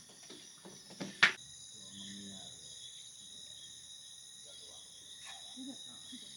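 Steady chorus of night insects, crickets chirring at several high pitches, with faint voices underneath and one sharp click about a second in.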